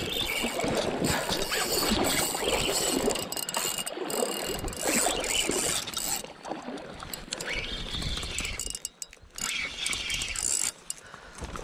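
Shimano Twin Power spinning reel being cranked to bring in a hooked asp, its gears whirring, with the winding stopping and starting in the second half.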